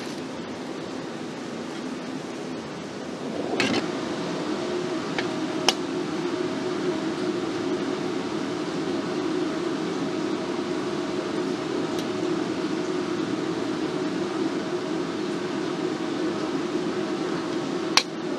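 A steady fan-like machine hum with a faint steady tone in it, growing a little louder about three and a half seconds in. Three sharp separate taps sound through it.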